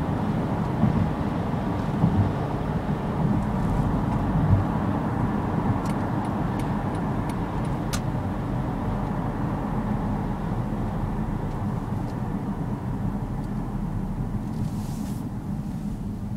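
Steady road and engine noise inside the cabin of a moving Honda CR-V, with a few thumps in the first few seconds.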